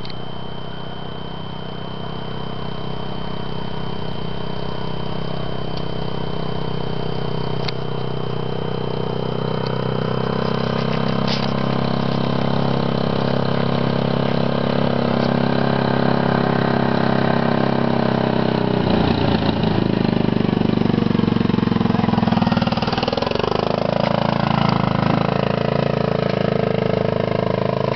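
ATV (quad bike) engine running steadily as it travels, slowly growing louder. In the last third the engine note rises and falls as the throttle changes.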